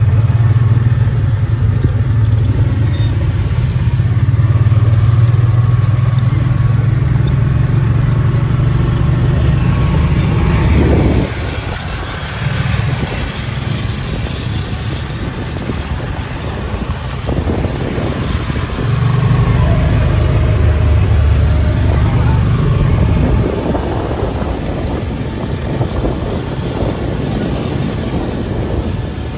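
A vehicle's engine runs with road and wind noise, heard from inside the moving vehicle. The low drone is heavier at first, eases about a third of the way in, and swells again for a few seconds past the middle.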